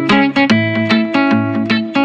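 Background music: rapid, evenly spaced plucked-string notes over sustained low bass notes.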